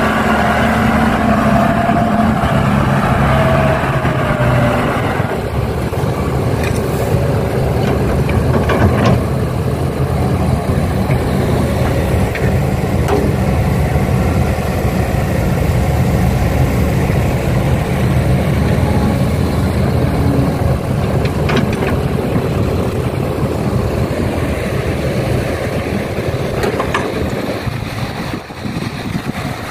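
Heavy diesel engine of earthmoving machinery running steadily, with a higher-pitched whine over it for the first five seconds or so. A few short knocks come through here and there.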